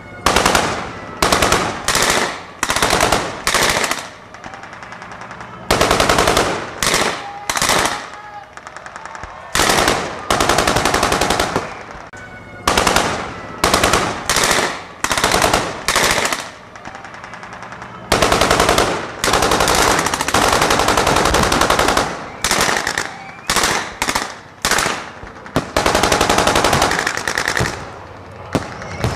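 .50-calibre anti-aircraft machine gun firing in a long series of short automatic bursts, each a fraction of a second to about a second and a half, with brief pauses between them and a longer lull around the fifth second.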